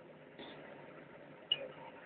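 Steel wrench clicking and scraping against the bare cylinder head of a Doosan excavator diesel engine: a short scrape, then a sharp click about a second later.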